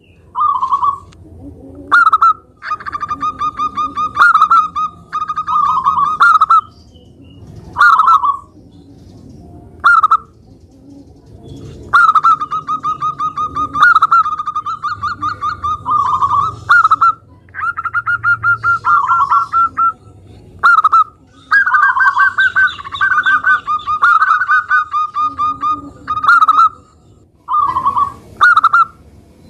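Zebra dove (perkutut) singing its cooing song. It gives single short coos and longer rapid trilled phrases of many quick notes, repeating in bursts a second or two apart.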